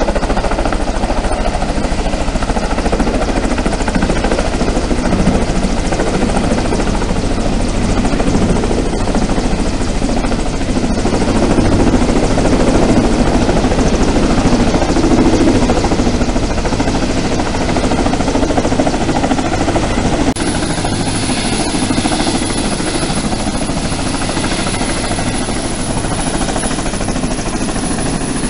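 Kamov coaxial-rotor helicopter hovering low and setting down on a flight deck: a loud, steady din of its rotors and turbine engines, heaviest as it nears the deck. About twenty seconds in, the sound cuts abruptly to a slightly quieter, brighter steady engine noise.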